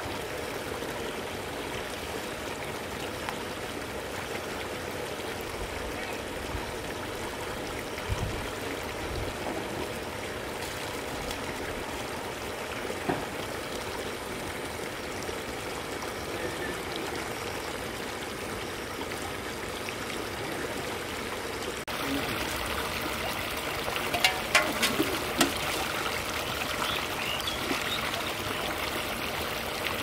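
Water running and trickling steadily over a muddy bank into a shallow stream. About three-quarters of the way in the sound changes abruptly to a brighter, slightly louder rush, with a few sharp clicks shortly after.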